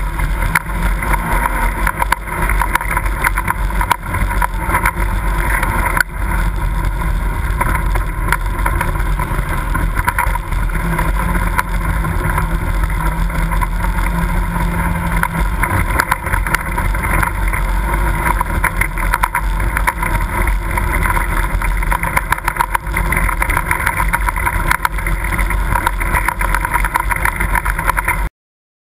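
Side-by-side UTV engine running at trail speed, with constant rattles and knocks from the vehicle's body jolting over rough, rocky ground. The sound cuts off suddenly near the end.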